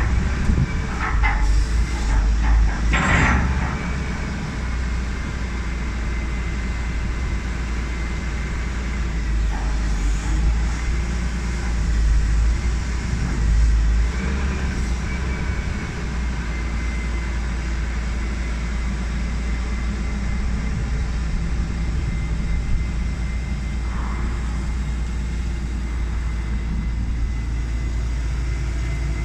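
Wheel excavator's diesel engine running steadily with a low rumble and a faint steady whine. A few short knocks and squeaks come in the first few seconds.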